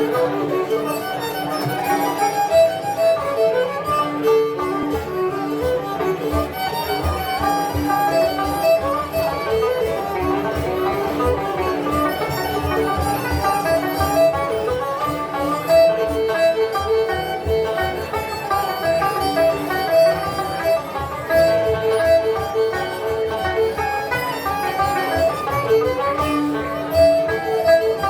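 Live acoustic folk band playing a Scottish instrumental tune: a running melody over an even strummed accompaniment from 12-string guitar and banjo.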